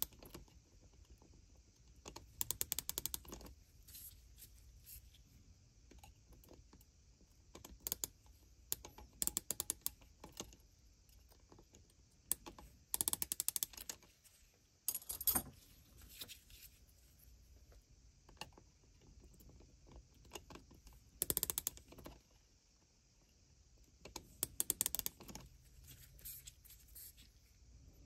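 Digital micrometer's ratchet thimble clicking in several short bursts of rapid clicks, a few seconds apart, as its spindle is closed onto steel rifle gas tubes to gauge their diameter.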